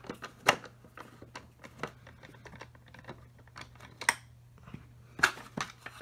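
Irregular light clicks and taps of hard plastic, with a few sharper knocks, as a screw is worked out of the plastic underside of a Hoover WindTunnel Supreme upright vacuum.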